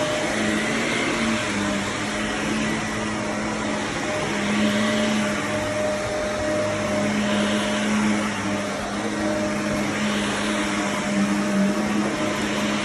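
Shark vacuum cleaner running steadily on carpet: an even motor hum and airflow hiss that swells a little every few seconds.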